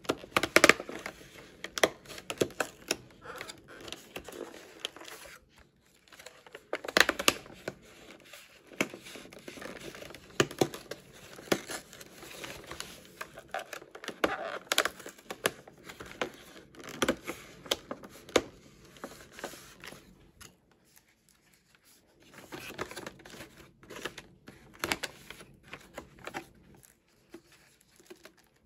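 Perforated cardboard doors of a gift box being torn open by hand: tearing and rustling card with sharp snaps, in several bursts separated by short pauses.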